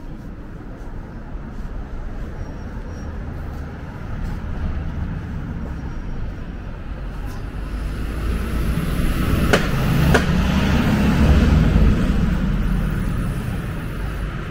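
Road traffic running, swelling to a loud low rumble as a vehicle passes close about ten to twelve seconds in, then easing off. Two sharp clicks sound just before the loudest part.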